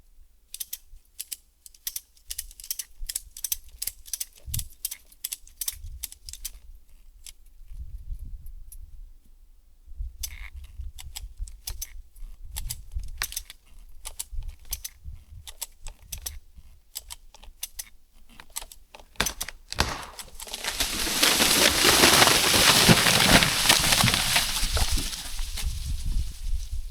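Ratchet of a hand winch clicking in quick runs as the line pulling over a dead white oak is tightened. About twenty seconds in, the tree gives way and falls with a loud, drawn-out crash of its rotten branches breaking apart.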